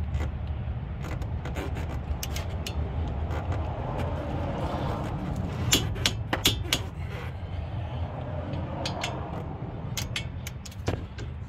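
Torque wrench ratcheting on the front brake caliper bracket bolts, with a few sharp clicks about six seconds in and another near the end as it reaches the set torque of 75. A steady low rumble runs underneath.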